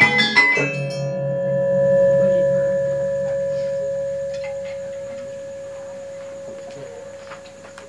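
The Javanese gamelan ensemble plays its last notes in the first second, then a gong rings on alone: a steady hum with a slow beating, swelling briefly and then fading slowly, with a few faint knocks near the end.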